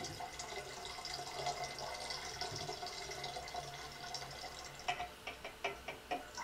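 Sparkolloid fining solution being poured from a glass measuring cup into the neck of a glass carboy of cider, a faint steady trickle. About five seconds in, it breaks up into separate drips and light clicks as the cup empties.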